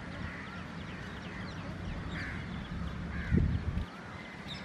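Crows cawing among other birds chirping, over a steady low rumble. About three seconds in, a brief loud low rumble cuts off suddenly.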